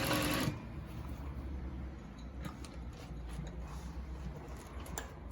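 Industrial single-needle chain-stitch sewing machine stitching, then stopping about half a second in. A low steady hum from its motor carries on, with a few faint clicks.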